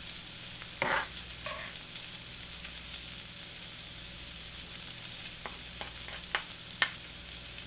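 Food sizzling steadily in fat on hot cast iron, with a few short scrapes and taps as a nylon spoon scoops scrambled eggs out of a cast iron skillet.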